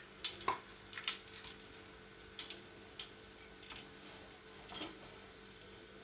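Whole spices (cinnamon, cloves, cardamom) crackling in hot oil: scattered small pops and clicks, frequent in the first half and thinning out after.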